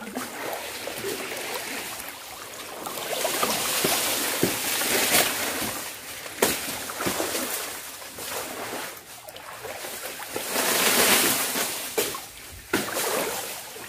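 Water sloshing and splashing in surges a few seconds long, with a few sharp knocks.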